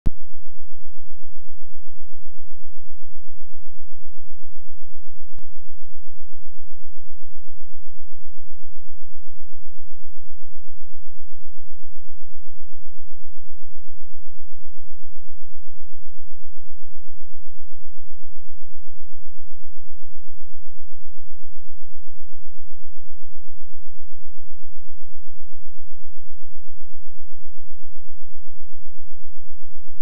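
A loud, steady low hum with nothing in the higher range, pulsing quickly and evenly. There is one faint click about five seconds in.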